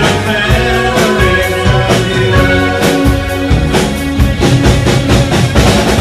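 Live new wave rock band playing, with a drum kit hitting steadily over bass and electric guitar. It is loud and recorded from within the audience.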